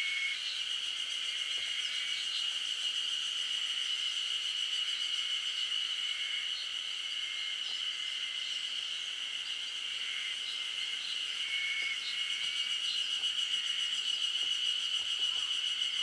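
Insects trilling in one steady, unbroken high buzz, with a few short faint calls over it.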